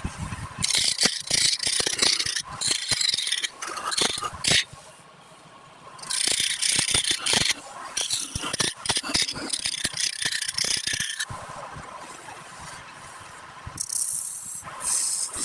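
A tool scraping and rattling against wood in irregular bursts, as in woodturning, with a short lull about five seconds in.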